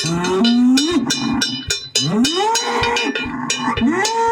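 A cowbell clanking in quick, uneven strokes while cattle moo over it: several long moos that rise in pitch and then hold.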